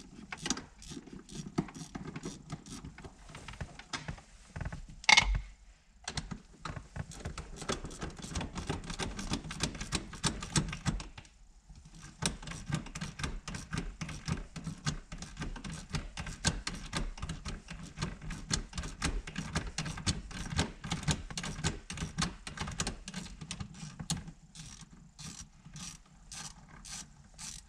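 Socket ratchet clicking rapidly as 8 mm bolts are backed out, in long runs with a short pause partway through. There is a sharp knock about five seconds in.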